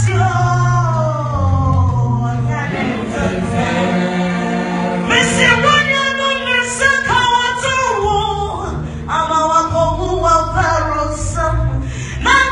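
Live gospel song: a singer on microphone over a church band, with sustained sung lines and a steady bass line underneath.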